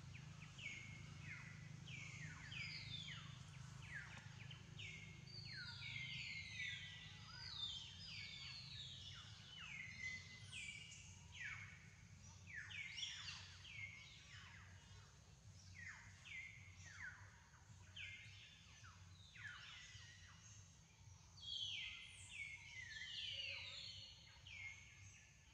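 Faint birdsong: many overlapping chirps, each sliding quickly downward, repeating throughout over a steady low background hum.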